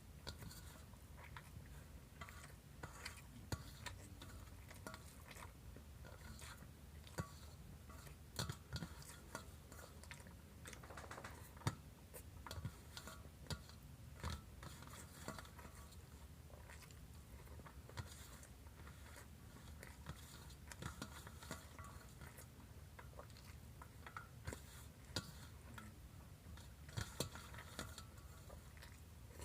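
A person chewing and eating, faint, with many small wet clicks and a few sharper knocks.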